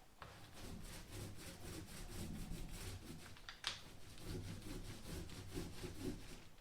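A brush rubbing back and forth over a wooden boat hull, spreading polyester coating in quick, even strokes.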